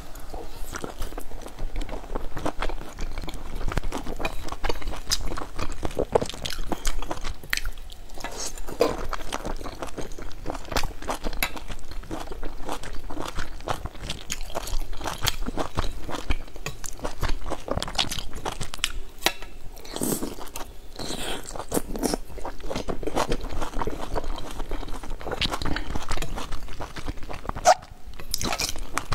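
A person biting into and chewing large soft dumplings: a dense run of wet, irregular mouth clicks and smacks.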